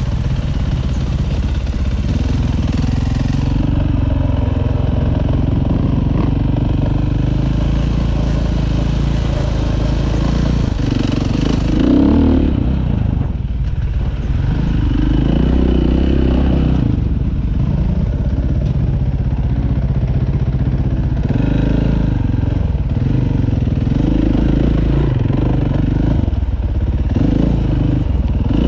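Dirt bike engine running under the rider, revving up and down again and again as the bike works up a rocky, loose climb.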